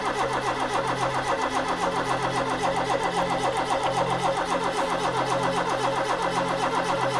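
Triumph Acclaim's Honda-built 1.3-litre four-cylinder engine cranking over on the starter motor with the choke out, churning in a steady, even rhythm without firing. The carburettors are still filling with petrol, and the coil lead to the distributor has been left off, so there is no spark to start it.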